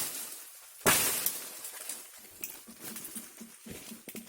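Two sharp woody cracks as an akar semambuk vine, a rattan-like forest climber, is broken off: a small one at the start and a much louder one about a second in. Fainter ticks and rustles follow.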